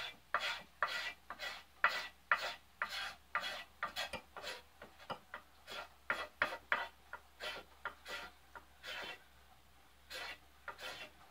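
Knife blade scraping factory varnish off a store-bought ax handle down to bare wood, in short rasping strokes at about two a second. The strokes stop about nine seconds in, with a couple more near the end.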